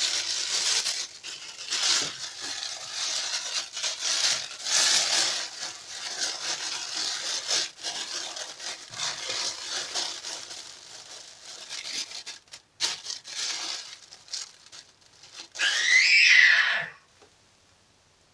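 Clear plastic oven-roasting bag crinkling and rustling as a raw stuffed chicken is slid into it and the bag is smoothed down over the bird. Near the end comes a short, loud squeak that rises and then falls in pitch.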